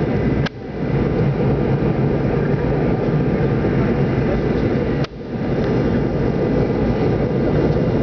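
Steady cabin noise of a jet airliner in flight, engine and airflow noise, broken by two sudden brief dropouts about half a second and five seconds in.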